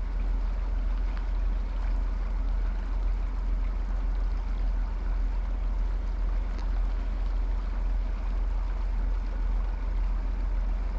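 A small stream flowing steadily: a constant rush of water with a deep, even rumble underneath.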